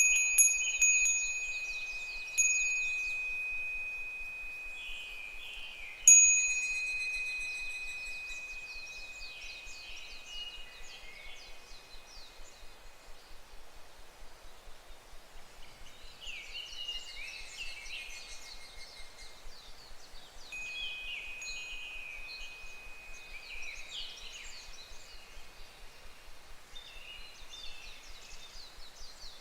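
Japanese fūrin wind chime ringing, struck a few times in the first six seconds with each note fading slowly, and ringing faintly again later. Higurashi (evening cicadas) call throughout in repeated, falling trills.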